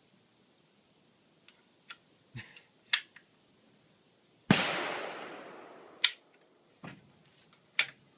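A few light clicks from the M6 Scout's hammer and action, then a single gunshot about four and a half seconds in whose echo dies away over about a second and a half. A sharp metallic click and a few softer clicks follow as the action is handled.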